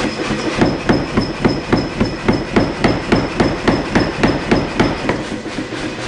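Hammer blows on a hot twist-Damascus billet, striking its jacket to set the forge welds. The blows come in an even run of about four a second and stop about five seconds in, over a steady rushing background.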